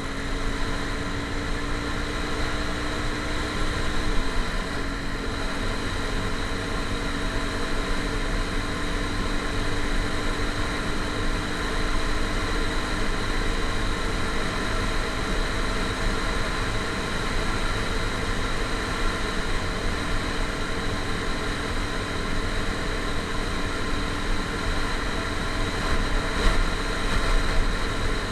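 A motor vehicle's engine running steadily, its pitch dipping briefly about four seconds in.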